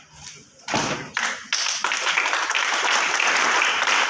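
Two sharp slaps of cadets' hands striking their drill rifles as a guard of honour comes to the present arms, then steady applause from a crowd starting about a second and a half in.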